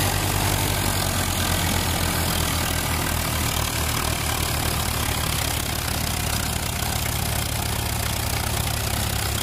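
Swaraj 855 FE and Eicher 557 diesel tractor engines running under load as they pull a loaded trolley out of soft ground, a steady low throb.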